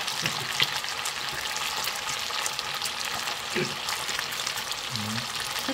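Pieces of smoked pork belly frying in hot oil in a pan: a steady sizzle with small pops and spatters.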